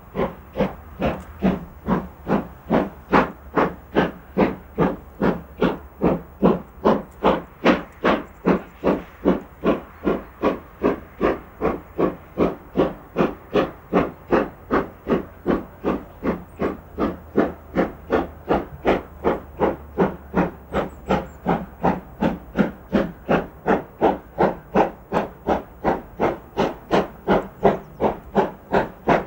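Steam locomotive pulling a passenger train under steam, its exhaust beating out a steady chuff, about three beats a second, with steam hiss.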